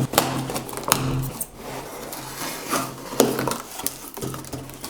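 A cardboard parcel being cut open with a pocket knife: irregular scraping and rasping, with sharp clicks as the blade and cardboard are worked.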